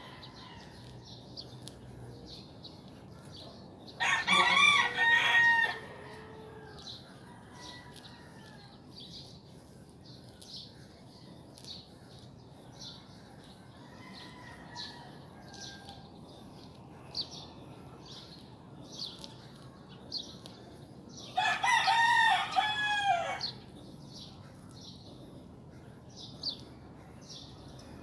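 A rooster crowing twice, each crow about two seconds long and the second some seventeen seconds after the first, over a steady high chirping.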